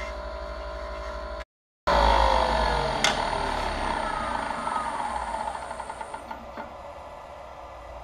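Wood lathe spinning with a turning tool cutting a stabilized oak pen blank, then, after a brief break, the lathe is switched off: its motor whine falls steadily in pitch as it spins down, with a sharp click about three seconds in and a few light ticks as it slows.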